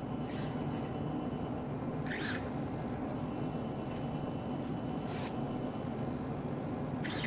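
Steady rushing noise from the Mini Talon FPV wing's onboard HD camera, with brief scratchy sweeps every second or two.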